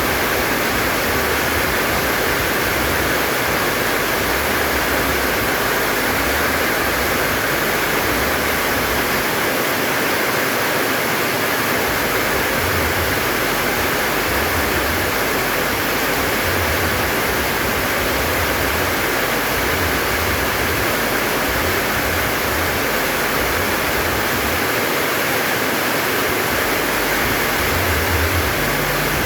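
Heavy rain pouring steadily, with strong wind.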